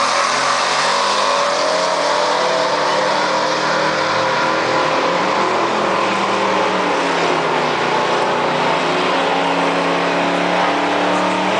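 Engines of two drag-racing cars, a 1972 Buick Skylark Stage 2 and an early Chevrolet Camaro, at full throttle down the quarter-mile, the pitch climbing and dropping back at gear changes.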